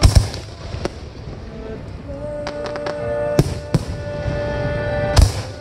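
Aerial fireworks shells bursting with sharp booms: two right at the start, two a little after three seconds, and one near the end, with fainter pops between, over sustained music.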